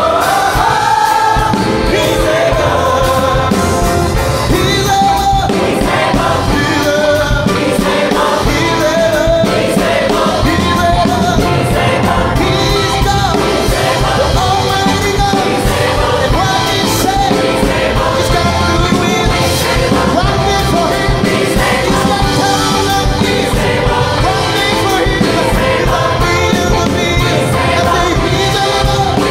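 Gospel choir and a male lead singer performing live with band accompaniment, the choir's sustained harmonies over a steady beat.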